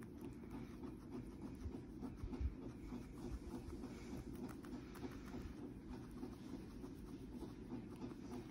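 Guinea pig chewing kale: a steady run of faint, soft crunching clicks.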